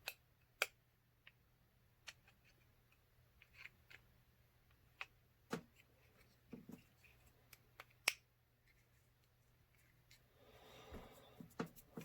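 Scattered sharp clicks and taps of small RC kit parts being handled and fitted by hand, the two loudest about half a second in and about eight seconds in, with a faint rustle near the end.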